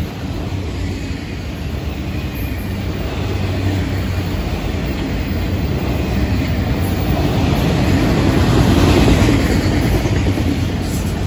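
Florida East Coast Railway freight train's autorack cars rolling past at trackside: a steady rumble of steel wheels on rail, building to its loudest about nine seconds in and then easing slightly.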